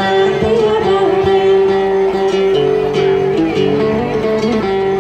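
Tày then folk singing to the plucked đàn tính, a long-necked gourd-bodied lute. The voice glides near the start, then held notes step from pitch to pitch over short plucked notes.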